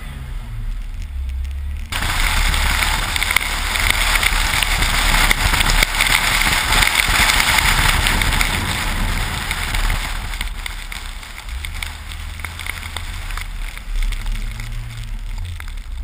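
Jeep Wrangler driving through snow: the engine runs low and steady beneath a loud rushing hiss of wind and snow spray. The hiss comes on suddenly about two seconds in and eases off after about ten seconds.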